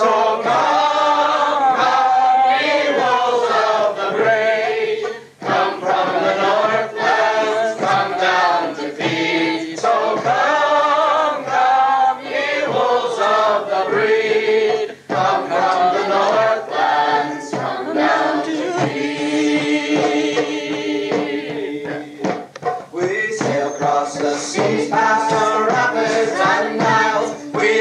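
A choir singing a song together, several voices at once, with brief pauses for breath about five and fifteen seconds in.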